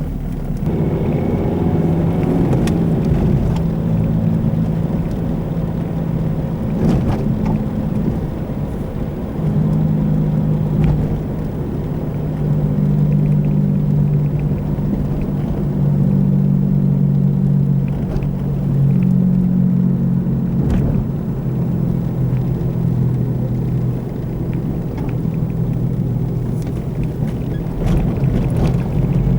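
Car driving with a low, steady drone from a bad wheel bearing over road noise, the drone swelling and fading every few seconds.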